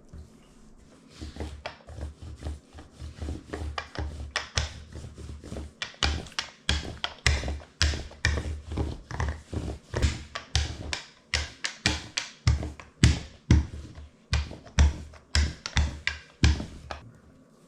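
Quick, irregular run of thuds and taps on a kitchen counter, a few a second. It starts about a second in, grows louder midway and stops shortly before the end.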